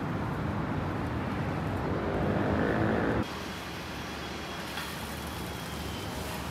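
Road vehicle noise: a car's engine and tyres growing louder, cut off abruptly about three seconds in, followed by steadier, quieter street traffic noise.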